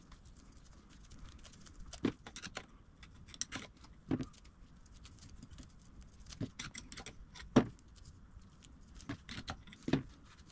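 Small steel parts of a dismantled bench vise being handled on the bench, giving scattered light metallic clicks and taps, with one sharper knock about two and a half seconds before the end.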